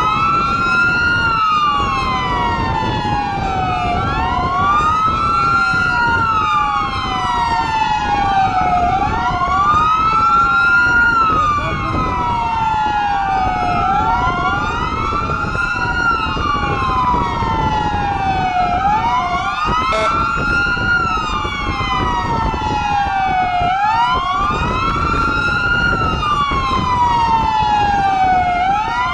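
Sirens of several police cars in a convoy, each wailing up and down every few seconds and out of step with one another, over steady engine and road noise.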